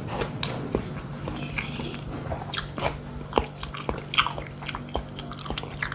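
Close-up eating sounds of a person chewing fish: irregular wet mouth clicks and smacks, over a steady low hum.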